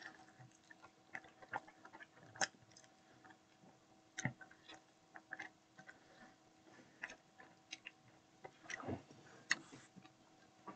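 Faint eating sounds: a person biting and chewing food, heard as irregular soft mouth clicks and smacks spaced a second or so apart, with a faint steady hum underneath.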